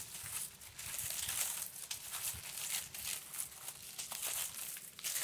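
Brown honeycomb kraft paper packing wrap being pulled open and crumpled by hand: a continuous run of irregular crinkles and small tearing crackles.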